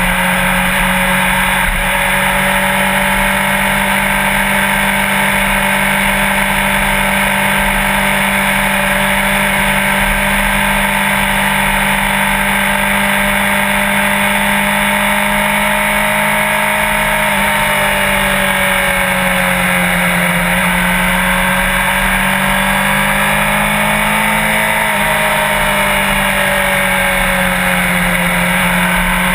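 Sport motorcycle engine running steadily at a constant cruise, over a steady rush of noise. About two-thirds of the way in, its pitch dips slightly and comes back up.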